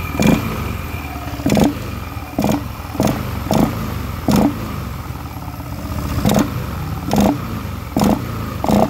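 Yamaha NMAX scooter's single-cylinder engine running with the CVT cover off, drive belt and pulleys spinning, with short louder bursts recurring roughly once a second. The cetok-cetok clicking is gone with the CVT cover removed, which points most likely to a worn CVT cover bearing.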